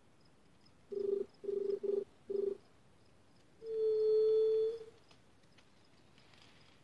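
A dove cooing: four short low coos in quick succession about a second in, then one long, steady coo held for about a second.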